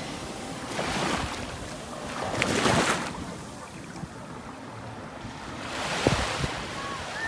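Calm sea waves washing onto a sandy beach, the wash swelling and fading three times.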